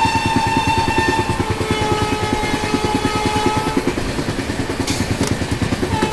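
Mysore–Chennai Shatabdi Express passenger train running at speed, heard from the open coach doorway: a fast, steady rumble and clatter of the wheels on the track.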